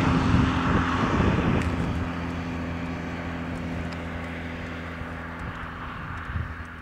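Motorcycle engine idling steadily at one even pitch. A rushing noise sits over it in the first two seconds and then fades.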